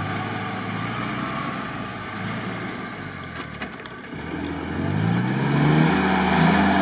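Willys jeep's four-cylinder engine pulling up a sandy slope in first gear, with a few knocks about three and a half seconds in; then the revs climb and it grows louder as the jeep comes closer, holding high at the end.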